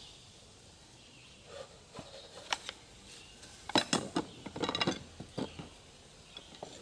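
Wooden hive frames clattering and knocking as they are handled and fitted into a nuc box: a few scattered clicks, then a quick run of sharp knocks about four to five seconds in.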